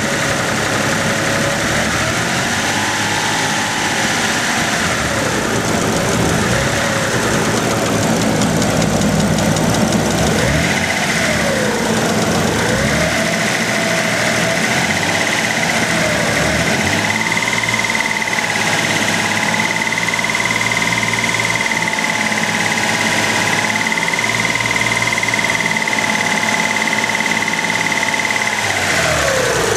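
Dodge Stealth's 3.0-litre V6 running near idle with a persistent tick, heard from the engine bay. The tick has survived new lifters and oil changes, and the owner doubts it is really lifter tick. A steady high whine joins about a third of the way in.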